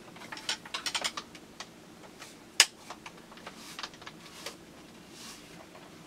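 Plastic clicks and rattles of an airsoft pump shotgun and its shell-type magazine being handled: a quick run of clicks at the start, one sharp loud click about two and a half seconds in, then a few scattered clicks and a soft rustle.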